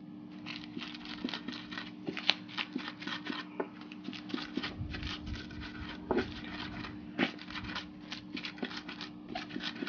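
Wooden pestle grinding chopped onions, peppers and salt against a clay grinding bowl (asanka): quick, irregular crunching and scraping strokes, several a second.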